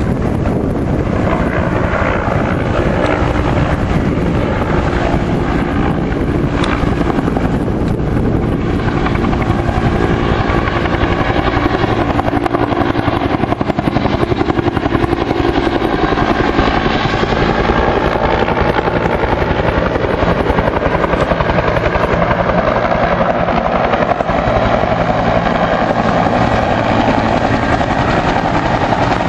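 Firefighting helicopter running loud and close, its rotor blades beating in a fast, steady flutter over the engine's continuous din.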